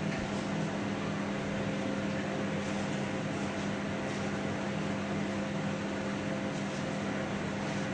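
Microwave oven running on its microwave setting with a pizza inside, giving a steady, even hum.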